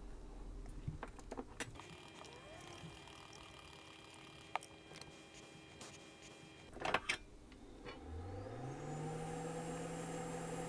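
A few light clicks of small tools, then about 8 s in a hot air station's blower spins up, rising in pitch and settling into a steady hum with a high whine, blowing over the board to dry off isopropyl alcohol.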